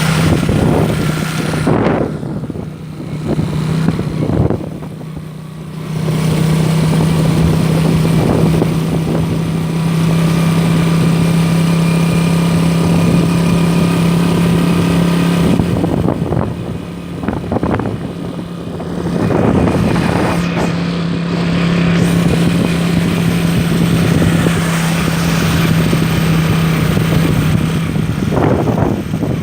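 Motorboat engine running at a steady pitch, easing off briefly twice, over rushing wind and water noise.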